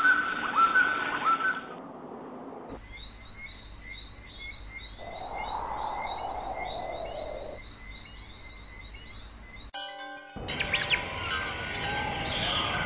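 A montage of stock birdsong recordings: repeated chirps and calls from wild birds, not the nestlings on screen. The recording switches abruptly to a different bird clip about two and a half seconds in, and again near ten seconds.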